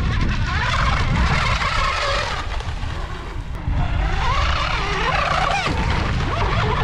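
Outrigger hydro RC racing boat's motor whining as the boat skims across the water. The pitch rises and falls, dropping about three seconds in and climbing again a second later, over heavy wind rumble on the microphone.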